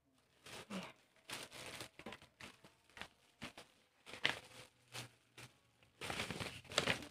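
Clear plastic wrapping crinkling and rustling as hands pull it off a laminating machine, in irregular bursts, loudest about four seconds in and again near the end.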